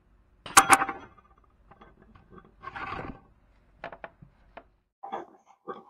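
A 4L60E transmission's 4x4 output shaft knocked free: two quick metallic clanks with a short ring about half a second in, then softer scrapes and small clicks as the splined shaft slides out of the case.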